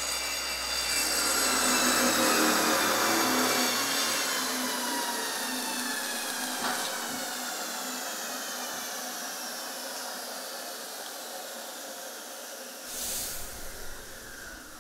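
Power tool motor winding down: a whine of several tones that slowly falls in pitch and fades. Near the end there is a short hiss as a gas cylinder valve is turned.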